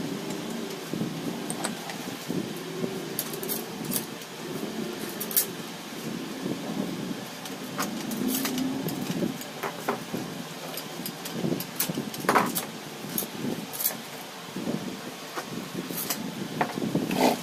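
Light metallic clicks and clinks scattered now and then, over a steady low rumble like vehicle traffic.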